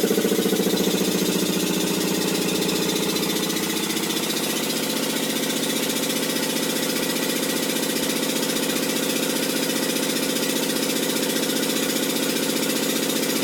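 Hitachi DV-1200 running with a steady, fast-pulsing hum that eases slightly over the first few seconds. The owner asks whether this is an abnormal noise and calls it noisy.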